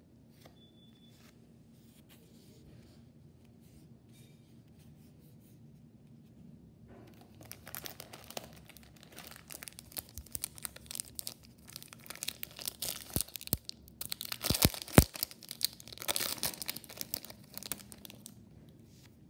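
Foil wrapper of a Topps Chrome baseball card pack crinkling and tearing as it is pulled open by hand. The crinkling starts about seven seconds in and stops shortly before the end, with sharp crackles near the middle; the first seconds are nearly quiet.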